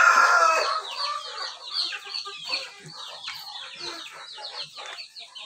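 Heritage chickens calling in their pens: a rooster's crow trails off in the first second, then many short, high calls falling in pitch, clucks and chirps from the flock.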